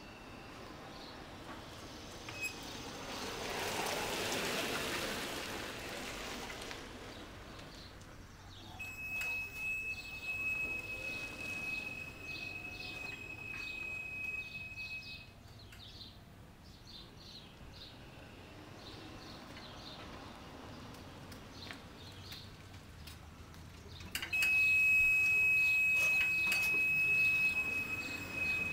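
EZ-GO XT500 36-volt electric utility cart's warning buzzer sounding a steady high tone, twice, each time for about six seconds; the second is louder, with the cart close by. Birds chirp faintly in between.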